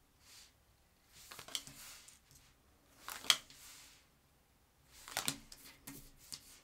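Cards being dealt one at a time onto a wooden tabletop: about five short snaps and slides of card on wood, the loudest about three seconds in.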